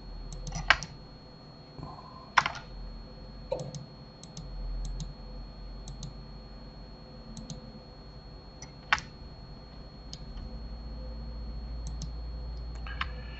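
Scattered clicks of a computer mouse and keyboard, irregularly spaced, over a steady low electrical hum.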